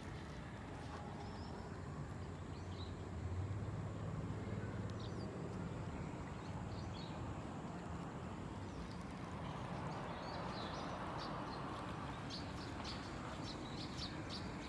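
Faint outdoor ambience: a steady low rumble that swells briefly about three seconds in, with small birds chirping, more often near the end.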